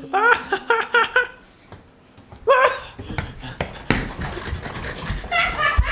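A dog giving a quick run of short, high yips, then a single longer yelp, followed by dull thumps and rubbing from the jostled camera, with more yips near the end.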